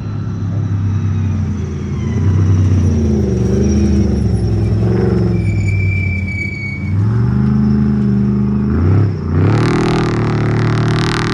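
Off-road race vehicle engine revving hard and easing off again and again as it drives through, its pitch rising and falling. About nine seconds in it dips sharply and climbs again, and a loud hiss joins in.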